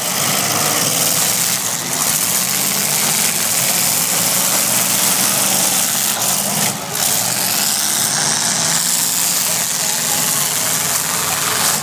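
Demolition derby cars' engines running loudly together, a dense, steady wash of engine and exhaust noise.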